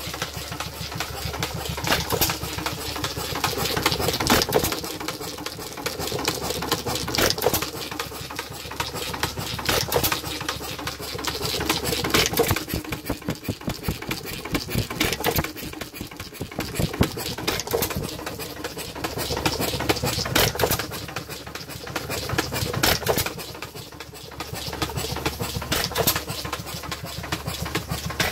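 International Harvester Famous 1 hp hit-and-miss gas engine running: a fast, even clatter of its valve and igniter gear, with a louder swell every two to three seconds as it fires.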